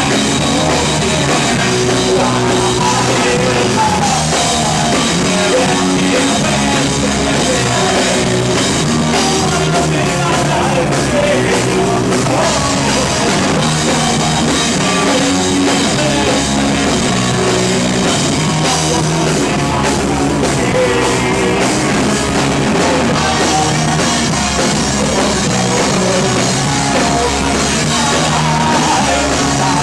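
Rock band playing live, loud and steady, with a full drum kit driving the song.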